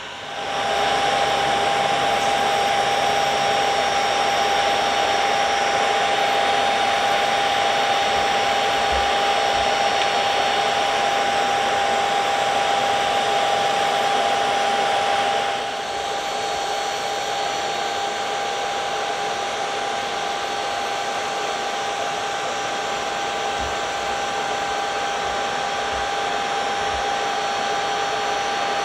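Aircraft engines running at a steady setting: a constant high whine over a loud, even rush. The rush drops back a little about 15 seconds in while the whine holds.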